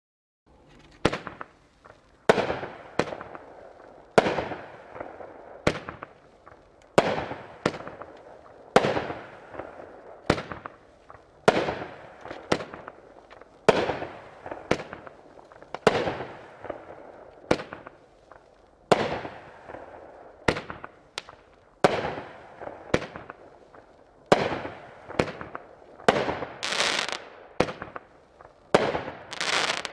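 Magnus '60 Sec Plus' 500-gram consumer fireworks cake firing shot after shot, starting about half a second in. A sharp bang comes roughly every second to second and a half, each trailing off before the next. Near the end there is a longer, denser burst.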